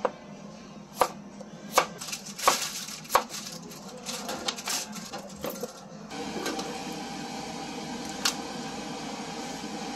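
Kitchen knife chopping chayote on a plastic cutting board: five sharp chops in the first few seconds, then lighter cuts. About six seconds in, a steady hum takes over, with one more click near the end.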